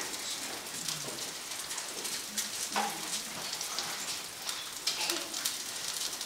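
Steak pan-frying, a steady sizzle with dense fine crackling of hot fat, and a few faint murmurs from the room.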